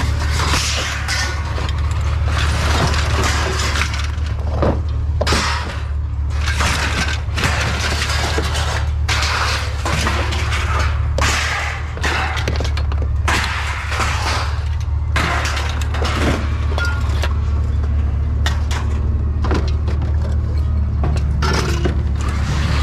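Scrap metal being thrown onto a pile: a long run of irregular clattering, crashing impacts, over a steady low hum.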